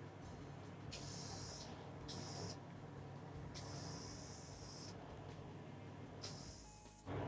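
Aerosol spray can of Aluma-Hyde II paint hissing in four short bursts of a second or less, each cutting off sharply, over a steady low hum.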